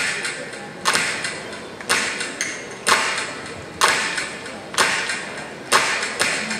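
Live band's song intro: a ringing metallic percussion hit, evenly spaced about once a second, seven times, each dying away before the next.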